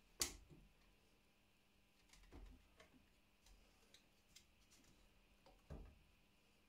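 A few faint clicks and light knocks as a plywood drill-bit rack is swung on its pivoting arm and handled, with the steel bits shifting in their holes. The sharpest click comes about a quarter second in, and a few softer ones follow.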